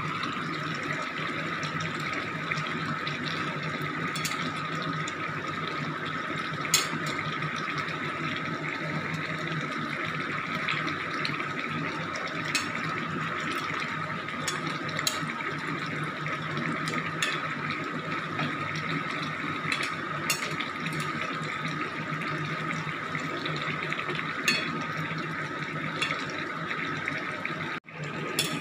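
Fish curry boiling in an open kadai: steady bubbling with scattered small pops over a faint steady hum. The sound drops out for a moment near the end.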